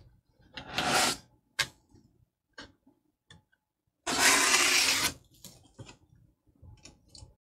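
Cardboard flaps of a large shipping box being lifted and folded open, cardboard rubbing and scraping against cardboard. A short scrape about a second in and a sharp click, then a longer, louder scrape about four seconds in, followed by light rustles.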